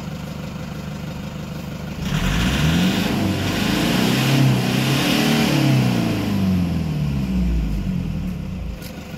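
Toyota HiAce Grandia's 1KD 3.0-litre four-cylinder turbodiesel, heard at the tailpipe, idling and then revved up about two seconds in. It holds high revs with the pitch rising and then falling, and drops back to idle near the end. This is a free rev to check the exhaust for smoke.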